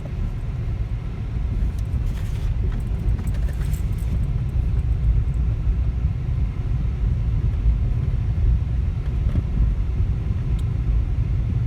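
Car driving on a rough, bumpy road, heard from inside the cabin: a steady low rumble of road and engine noise, with a few faint rattles and knocks a couple of seconds in.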